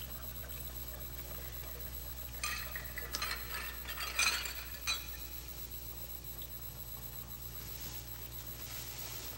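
Quiet room with a steady low hum on the soundtrack, and a few short, light clinks about two and a half to five seconds in.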